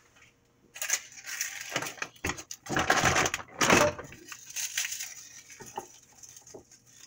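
Kitchen handling noises: a run of rustling and crinkling, loudest about three to four seconds in, followed by a few light clicks, as ingredients are handled off camera.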